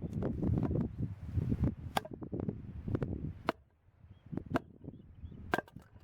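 Several sharp knocks or cracks at uneven intervals, over rumbling wind noise on the microphone that dies away midway.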